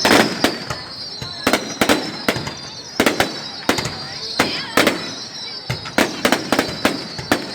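Fireworks display: sharp bangs of exploding aerial shells, about two a second at irregular spacing, some with a short crackling tail. A steady high-pitched whistle runs beneath them.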